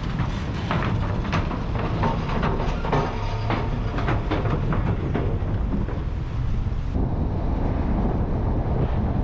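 A vehicle ferry's machinery running in a steady low rumble, with repeated metallic clanks and rattles. About seven seconds in, it gives way to a steady rush of wind on the microphone.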